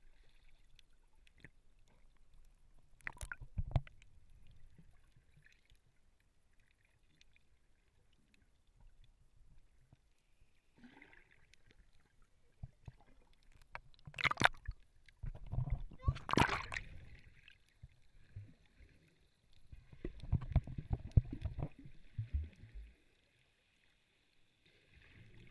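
Muffled underwater sound picked up through an action camera's waterproof housing: low rumbling and sloshing of water with a few sharp knocks, one about three seconds in and two around fourteen to sixteen seconds in.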